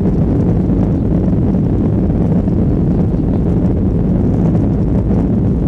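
Boeing 737-800's CFM56 jet engines running, heard from inside the cabin as a steady, loud low rumble with a rushing hiss on top.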